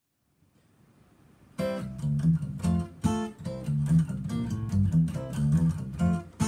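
Steel-string acoustic guitar playing a tune with a steady rhythm and a strong bass line, starting sharply about a second and a half in.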